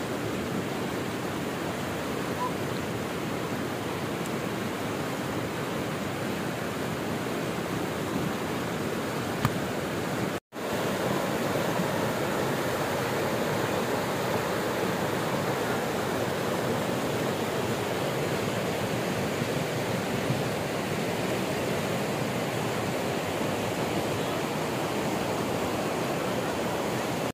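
Rushing of a muddy mountain river swollen in flood, a steady, dense water noise. It breaks off for a moment about ten seconds in.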